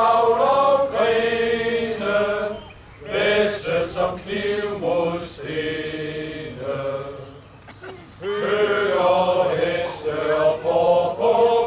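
Men's choir singing a song in several parts, in phrases with two short breaks between them.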